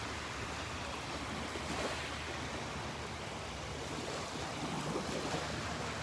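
Steady wash of small surf breaking and running up a sandy beach.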